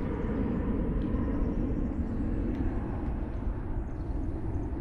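Steady low rumble and rush of wind buffeting the microphone outdoors, with no distinct events.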